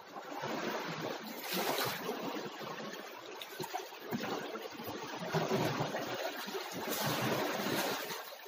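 Water splashing and sloshing, rising and falling in loudness.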